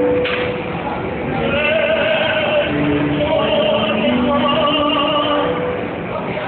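Operatic male singing with strong vibrato over a backing track from a small portable amplifier, the voice coming in about a second and a half in. A sharp click sounds just before it.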